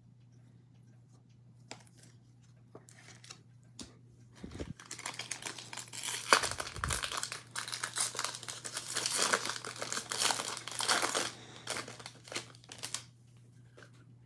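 Foil wrapper of a Topps baseball card pack being torn open and crumpled by hand: a few light clicks, then about eight seconds of dense crackling and crinkling that stops near the end.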